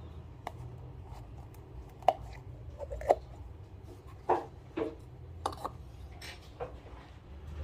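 Scattered light clicks and knocks of hard plastic and metal grinder parts being handled and set in place on a DF64 coffee grinder, over a low steady hum.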